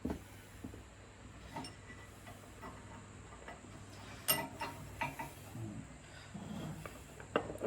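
Scattered light clicks and taps of metal parts being handled while a mini bike's front wheel axle is pushed through and its spacer fitted, with a couple of sharper knocks about four and five seconds in.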